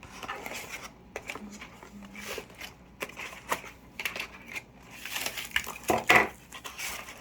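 Packaging being handled during an unboxing: irregular rustling, crinkling and small knocks, with a louder burst of crinkling about six seconds in.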